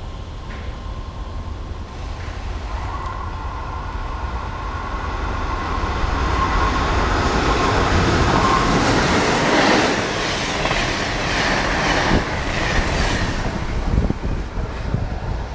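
Amtrak AEM-7 electric locomotive and its passenger cars passing at speed: a rush of noise with a steady whine builds as the train nears, peaks as the locomotive goes by, then gives way to a run of sharp clicks as the wheels cross the rail joints.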